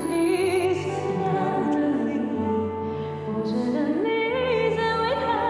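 Music: a singing voice moving and gliding over held low notes.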